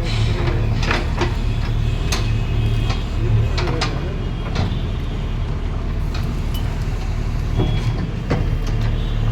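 Excavator engine running steadily with a low hum, with scattered sharp knocks as the bucket digs into the earth.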